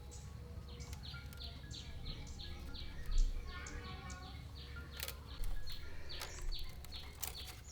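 A bird calling over and over in short, falling chirps, several a second, over a steady low hum, with a few sharp knocks, the loudest about three seconds in.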